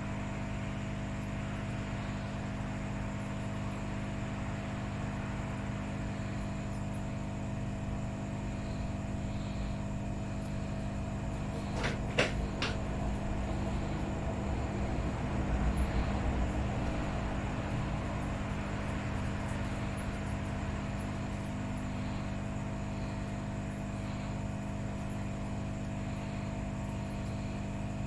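Steady machine hum with several constant tones, broken by two light clicks about twelve seconds in.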